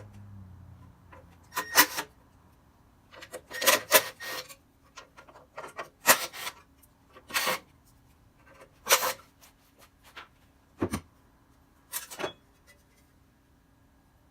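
A series of short scrapes and clinks of parts being handled while a CBN wheel is fitted onto a bench grinder. There are about seven of them, a second or two apart.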